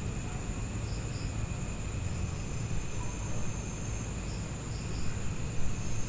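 Evening insect chorus: crickets trilling in several steady high tones over a low, constant rumble, with a few short high chirps scattered through.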